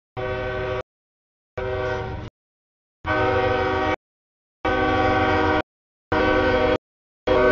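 CSX freight diesel locomotive's air horn sounding at a grade crossing in six short blasts of under a second each, split by brief silent gaps, with the engine's low rumble underneath.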